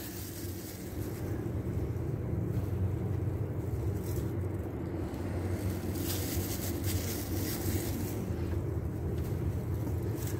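Steady low background rumble and hum, with faint higher hiss now and then.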